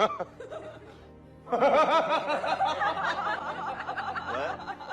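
Laughter, starting about a second and a half in and running in rapid pulses for about three seconds.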